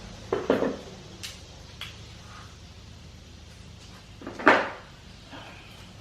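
Clanks and knocks of hand tools and metal parts being handled: a sharp knock about half a second in, a few light ticks, and the loudest clank about four and a half seconds in, over a low steady hum.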